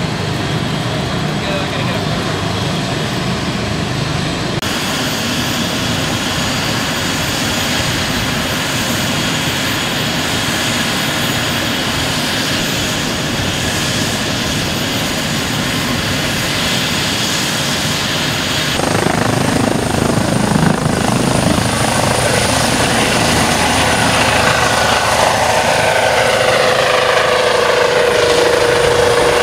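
Medical helicopter with a shrouded (Fenestron) tail rotor, its turbines and rotors running steadily. From about two-thirds of the way in, as it lifts off and flies, the sound gets louder and the turbine whine falls in pitch.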